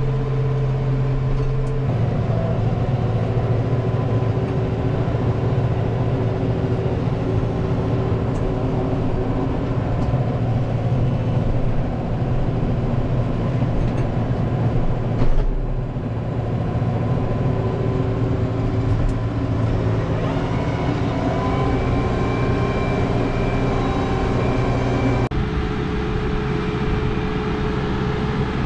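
Case IH 75C tractor's diesel engine running steadily under load, heard from the cab as the loader grapple pushes into a brush pile. The sound shifts abruptly about 25 seconds in.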